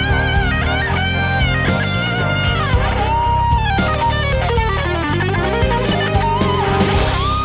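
Rock instrumental music: a lead electric guitar plays sustained notes with vibrato over bass and drums. About halfway through it runs down through a string of notes, climbs back up, and ends on a long held note.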